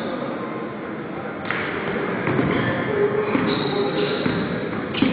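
Basketball bouncing and thudding on a hardwood gym floor during a pickup game, with players' voices calling out. A louder thump comes near the end.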